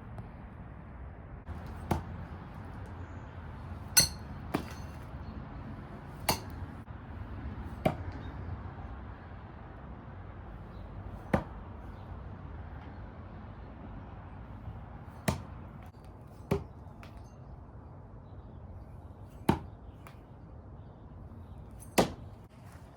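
Willow Leaf throwing knives striking a target, about ten sharp impacts at uneven intervals a few seconds apart. The loudest, about four seconds in, has a short metallic ring.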